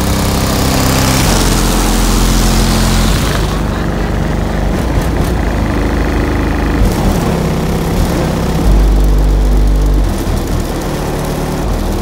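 Wall of six SoundQubed HDC3 15-inch subwoofers in a pickup truck playing loud, deep held bass notes that shift pitch every second or two, heard from outside the truck. The deepest and loudest note comes about three quarters of the way through.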